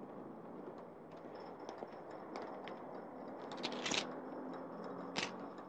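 Faint steady hiss with scattered small clicks, and two sharper clicks about four and five seconds in.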